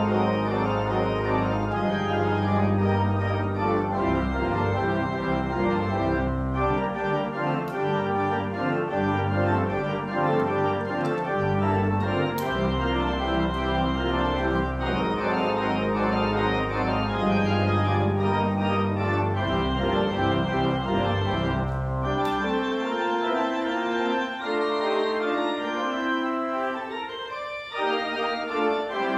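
Church organ playing a postlude: sustained chords over deep bass notes. The bass drops out about two-thirds of the way in, leaving higher notes, with a quick rising run near the end.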